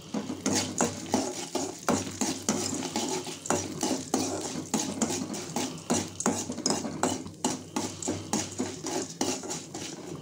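Metal ladle scraping and clinking against a metal kadai as chana dal and urad dal are stirred while roasting in oil. The scrapes come over and over, about two or three a second.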